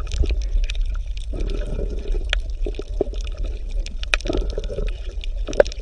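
Underwater ambience: a steady deep rumble with gurgling and scattered bubbling pops and clicks.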